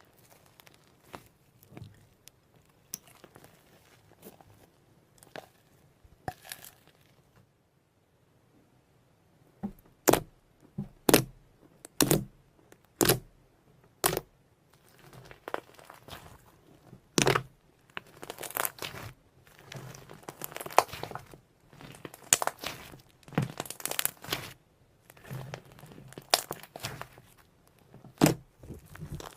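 Slime being handled by hand: crinkly, crackling squishing with a run of sharp pops about once a second near the middle, then denser sticky crackling.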